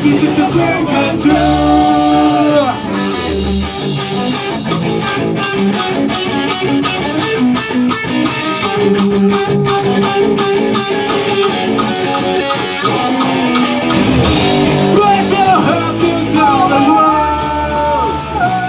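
Rock song with a sung vocal, guitar and drums. The drum hits come thick and fast through the middle, and the vocal line stands out near the start and again near the end.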